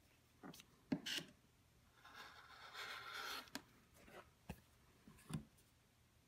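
Rotary cutter blade rolling through layered cotton fabric along an acrylic ruler on a cutting mat, a scratchy hiss lasting about a second and a half. Before and after it, light knocks and taps as the ruler and cutter are shifted and set down.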